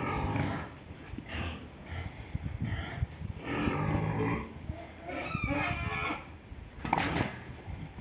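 A pig grunting several times in separate short bursts, with a sharper, higher squeal about seven seconds in.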